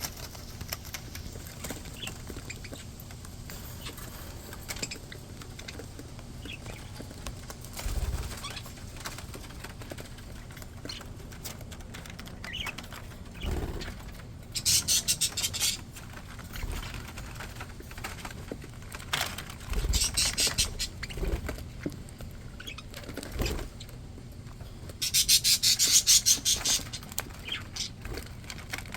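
Pet budgies chirping and chattering in short calls, with three louder bursts of rapid rattling sound and a few soft thumps.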